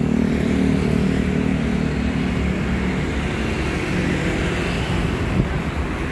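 Steady street traffic: motorbikes and cars passing on the road alongside.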